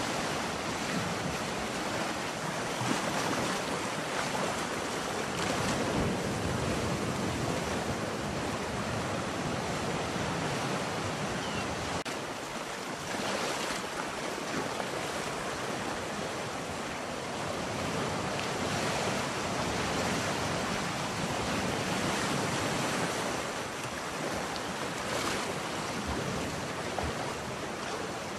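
Ocean surf: a steady wash of waves that swells and eases every few seconds.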